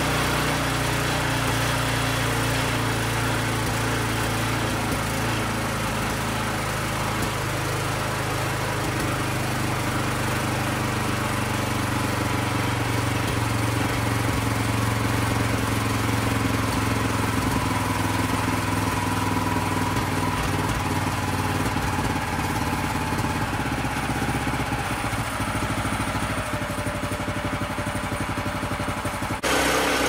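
Predator 212cc single-cylinder four-stroke engine running steadily, with a sudden change in its sound just before the end.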